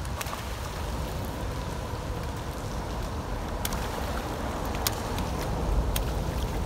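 Steady patter of rain with a low rumble beneath it, cut by a few sharp ticks in the second half. Toward the end a hooked hane (young Japanese sea bass) thrashes and splashes at the surface.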